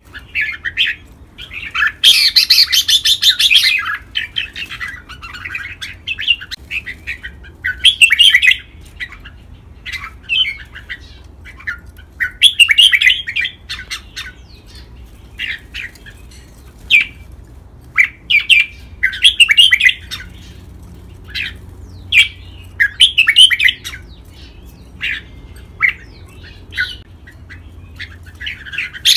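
Red-whiskered bulbul song: short, bright chattering phrases repeated every second or two, the loudest and longest burst about two seconds in.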